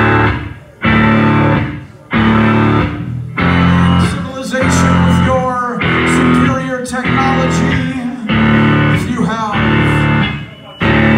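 Live rock band playing loud electric guitar and bass chords in heavy stabs of about a second each, with short breaks between them.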